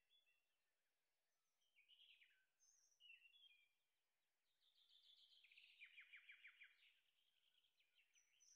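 Faint birdsong: several short chirping phrases and a rapid trill about halfway through, over quiet outdoor background noise.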